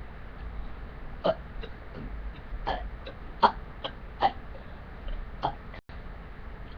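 A series of short, small burps, about five brief ones spaced a second or so apart, the loudest a little past halfway.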